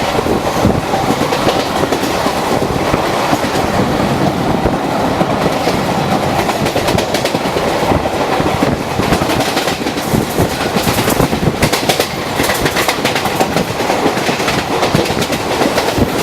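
ICF passenger coaches of an express train passing at speed, a continuous rumble with rapid clickety-clack of the wheels over the rail joints, the sharp clicks growing denser in the second half.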